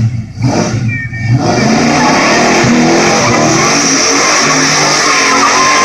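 Box Chevy engine blipped a few times, then held at high revs while the car spins donuts, its rear tires squealing steadily.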